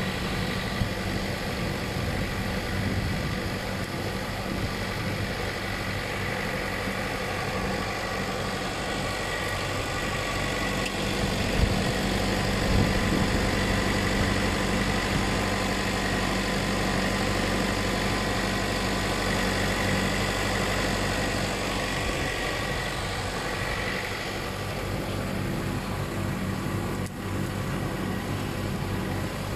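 Massey Ferguson 5613 tractor's diesel engine running steadily as it pulls a boom sprayer across the field, with a faint steady high whine over it.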